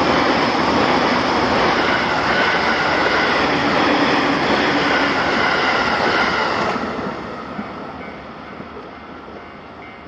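A train running through a railway level crossing, loud and steady, then dropping off suddenly about seven seconds in and fading away as it moves off.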